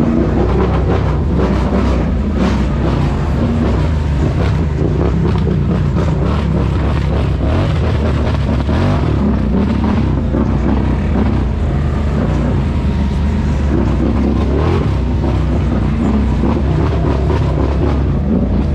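ATV engine running steadily at a slow, even pace over a rough dirt trail, with a few scattered knocks.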